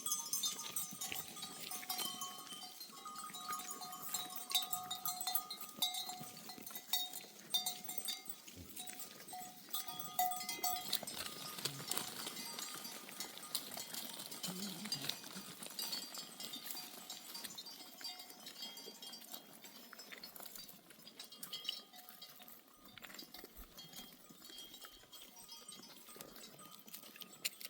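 Bells on a flock of sheep and goats clinking and ringing as the animals move along, among many small clicks and knocks. The ringing is clearest in the first ten seconds or so, then thins out.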